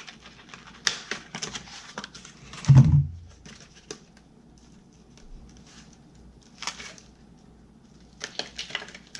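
Hands handling small hard plastic parts at a laptop: scattered light clicks and rustling, with one louder short low thump about three seconds in.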